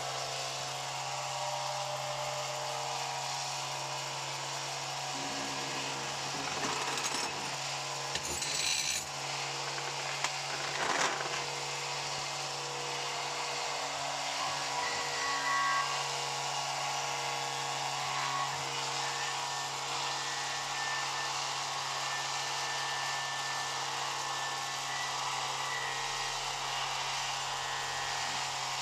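A small power tool's motor running steadily with a constant hum and hiss, with a few brief scraping noises about a third of the way in.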